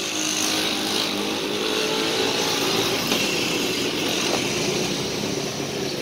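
Motor traffic running close by, a motorcycle engine among it: a steady engine noise whose pitch shifts slowly.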